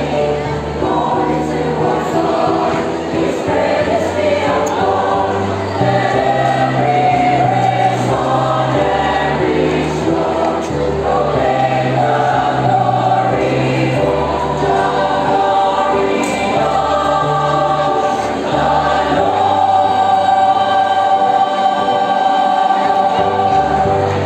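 A choir singing in parts over low, steady bass notes that change every few seconds, closing on a long held chord in the last few seconds.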